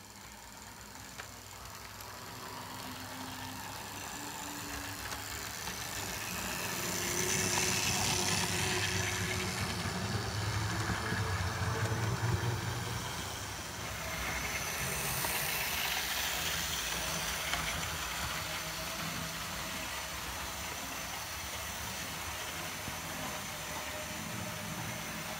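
Hornby APT model train running on its track: the steady whir of its electric motor and the rattle of its wheels on the rails grow louder as it approaches, peak as it passes close by, then ease off as it runs away.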